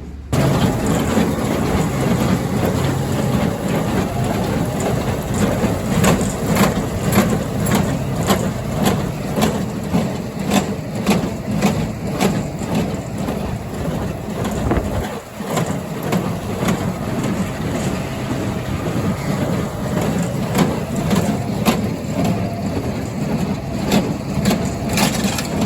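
Rebaling rig running: a Hesston 4590 square baler fed by a hay bale processor, driven from a John Deere 7410 tractor's PTO. The tractor engine runs under load beneath a continuous clatter of shredding and baling, with sharp knocks about once or twice a second. The sound dips briefly about halfway through.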